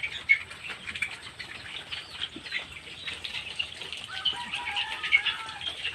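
Many birds chirping at once: short high chirps overlapping throughout, with a lower drawn-out call about four seconds in.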